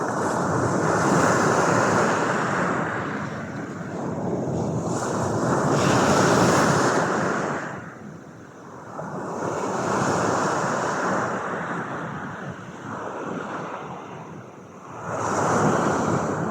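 Ocean waves breaking and washing on a shore: a rushing noise that swells and fades, about four surges a few seconds apart.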